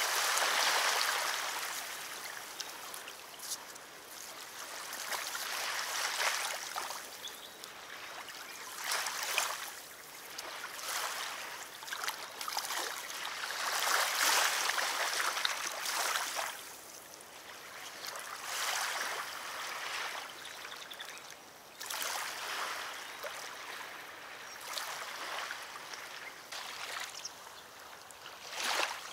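Rubber boots wading through shallow water among reeds, each step a splashing slosh, coming irregularly every second or two.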